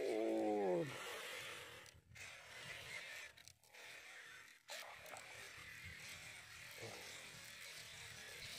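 A man's short exclamation, falling in pitch, at the start, then a faint steady buzzing hiss.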